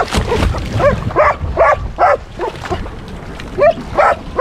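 A dog yipping and barking in quick, high, repeated bursts, about six in a row, a short pause, then a few more.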